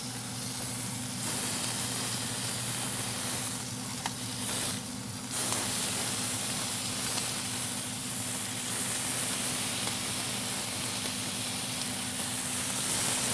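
Strips of bacon sizzling on a preheated cast iron griddle insert in a Yoder YS640s pellet grill: a steady frying hiss.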